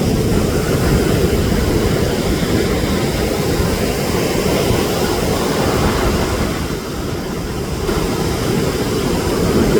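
Wind buffeting the camera's microphone: a loud, uneven low rush that eases slightly about seven seconds in.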